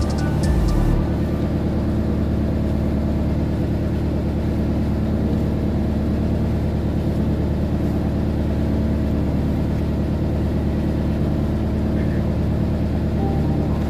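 A fishing boat's engine running in a steady low drone.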